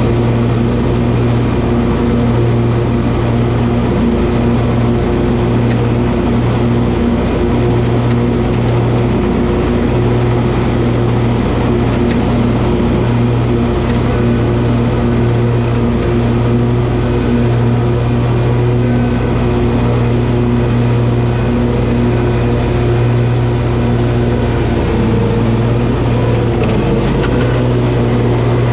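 Toro zero-turn mower engine running steadily at working speed while mowing grass, with a brief dip and wobble in pitch near the end.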